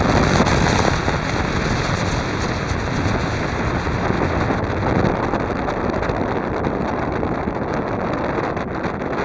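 Speedboat running at speed: a steady, loud rush of wind and engine noise, with wind buffeting the microphone.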